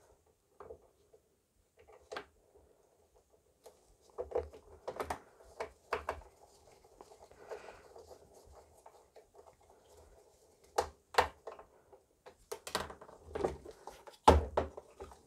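Hands working on a metal power-supply case during reassembly: scattered clicks and knocks of parts and screws being fitted, with light handling rustle between them. The sharpest knocks come in the last few seconds.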